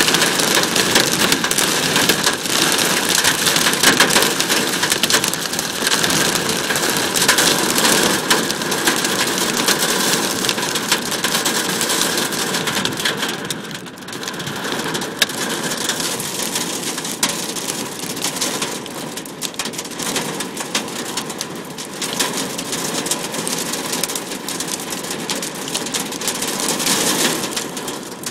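Dime-size hail mixed with rain pelting the sheet metal of a Nissan pickup, heard from inside the cab: a dense, rapid patter of sharp snaps. It eases a little about halfway through.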